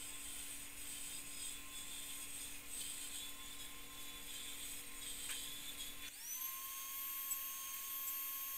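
Taig Micro Mill's spindle running with the cutter milling into a wooden sign blank, a steady high whine with hiss. About six seconds in, a clearer whine slides up in pitch and holds.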